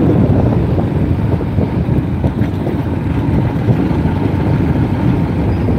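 Motorcycle being ridden along a road: steady engine and road noise, with wind rushing over the microphone.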